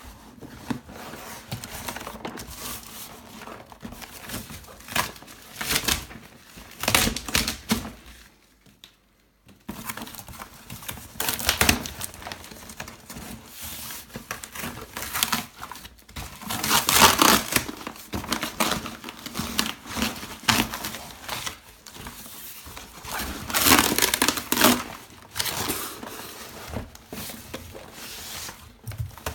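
Corrugated cardboard shipping carton being torn open by hand: irregular bursts of ripping, crinkling and scraping cardboard, the loudest about halfway through and again later, with a brief silent break about a third of the way in. An inner cardboard box scrapes against the torn carton as it is slid out.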